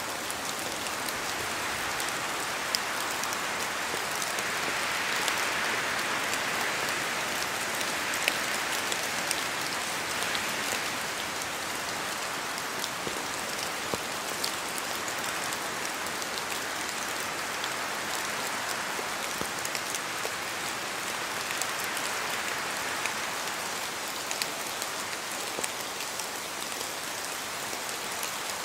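Steady rain falling through forest trees, a continuous hiss that swells gently a few times, dotted with scattered sharp drips of drops falling from the leaves.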